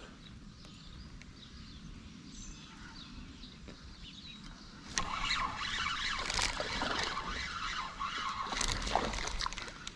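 Quiet creek background, then from about five seconds in a spinning fishing reel is cranked fast, a dense run of clicks and rattling, as a small smallmouth bass is reeled in.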